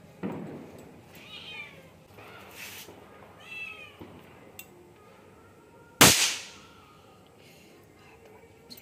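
A cat meowing twice, short calls about a second and a half and three and a half seconds in. About six seconds in comes a loud sharp bang, the loudest sound here, which dies away over about half a second.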